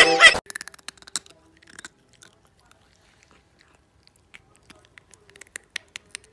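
A cat nibbling and chewing on a person's fingertip: quiet, irregular clicky, crunchy mouth sounds, in a first cluster and again from about four seconds in. A loud pitched sound is cut off within the first half second.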